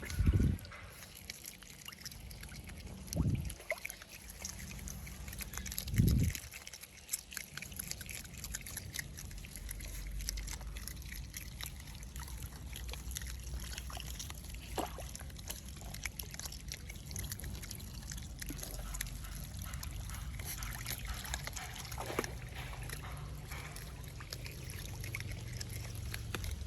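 Water trickling and sloshing, with three dull low thumps in the first six seconds.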